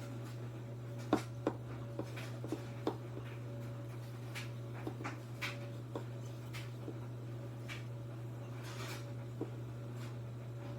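A steady low hum with a faint higher tone above it, and light clicks and taps scattered through, the sharpest about a second in.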